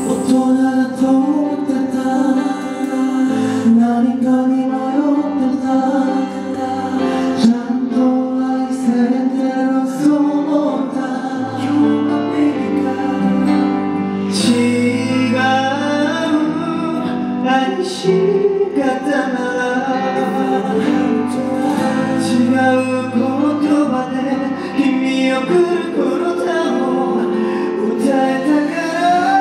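A man singing live into a handheld microphone over instrumental accompaniment.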